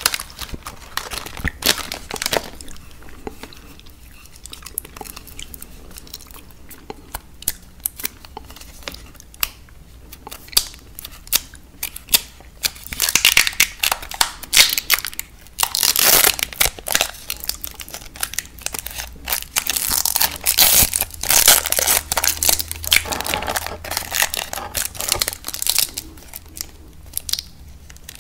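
Candy wrappers and plastic packaging crinkling and tearing close to the microphone, mixed with crunching and chewing of candy. Sparse crackles at first, then dense crinkling in the second half.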